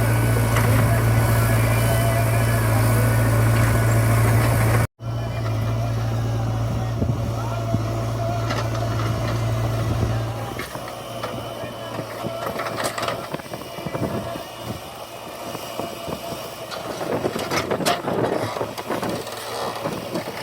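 Heavy diesel engine running steadily with a low hum, cut off abruptly for an instant about five seconds in, then dropping away about halfway through, leaving quieter scattered knocks and clatter.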